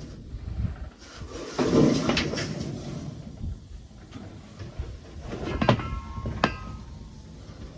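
Metal handling noise from work on a round baler's bearings: a stretch of scraping and shuffling, then two sharp metallic clanks, each with a brief ring, about five and a half and six and a half seconds in.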